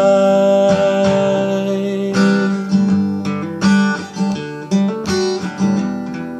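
Steel-string acoustic guitar played slowly: a chord rings out at first, then strummed chords follow about every second or so.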